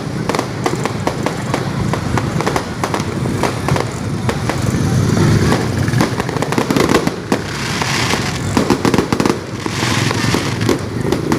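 Many fireworks and firecrackers going off at once: a dense, unbroken barrage of cracks and pops with no pause.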